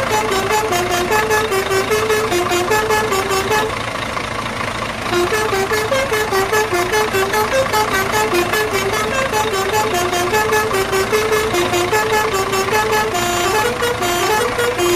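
Upbeat background music: a simple melody of short stepped notes over a steady, quick beat.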